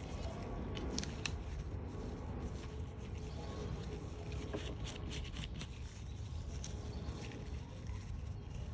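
Scattered light clicks and taps of small screws and a plastic tool housing being handled during reassembly, over a steady low hum.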